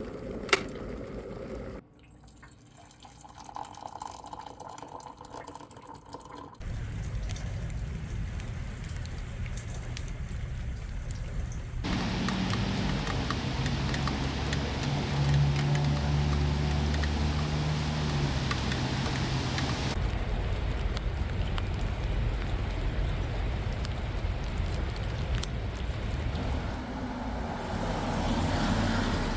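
Rain dripping and pattering, with a low rumble of passing road traffic that grows louder near the middle; the sound changes abruptly several times.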